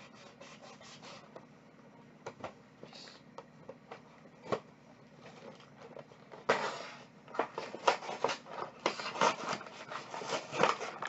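A box of taco shells being opened by hand. There are scattered light clicks and rustles at first, then about six and a half seconds in a tearing sound, followed by repeated crackling crinkles from the plastic-wrapped packs of shells inside.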